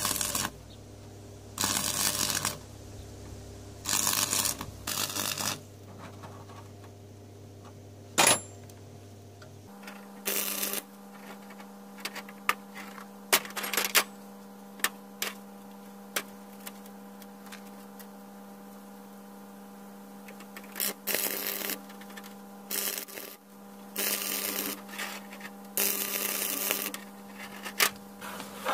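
Stick arc welding in short tack bursts, each about a second long, repeated several times with a crackling arc. Sharp hammer taps on the steel come in a run in the middle, over a steady electrical hum.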